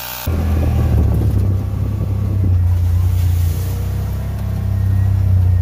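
A small electric tyre inflator's hum cuts off a fraction of a second in, and a side-by-side UTV's engine takes over, running steadily with a low rumble as the machine drives along a dirt trail, heard from inside the cab.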